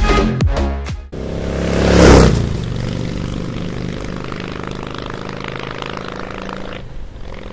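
Electronic dance music cuts off about a second in. A rising whoosh swells to a peak and fades into a steady, engine-like drone that holds until near the end.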